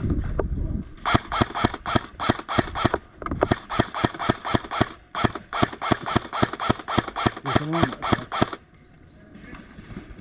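Airsoft guns firing rapid repeated shots, about five a second, in several runs with short pauses. The shooting stops suddenly near the end.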